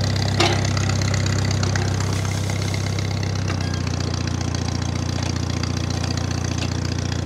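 1950 Farmall Cub's four-cylinder flathead engine idling steadily, with a sharp click about half a second in. About three and a half seconds in, the engine note shifts slightly.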